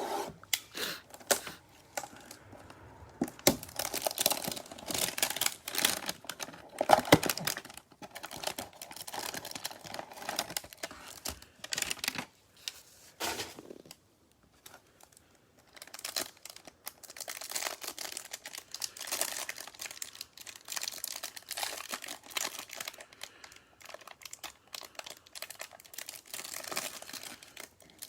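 Trading card packaging being torn open and handled: crinkling wrapper and tearing cardboard in irregular crackling bursts, pausing briefly about halfway through.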